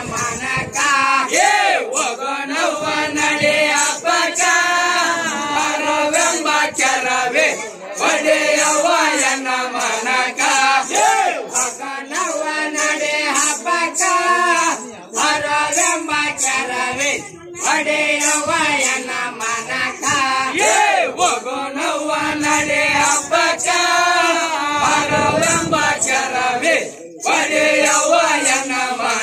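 A group of men singing a rivayat folk song together in chorus, the lines broken by a few short pauses.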